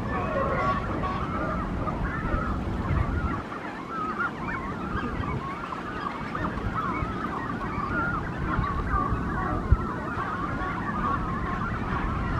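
A nesting colony of Brandt's cormorants, with many birds calling over one another in a continuous wavering, honking chorus over a low rumble. There is a single sharp knock near the end.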